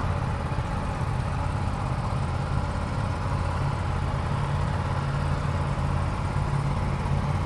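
Aprilia RS457 parallel-twin motorcycle engines idling steadily.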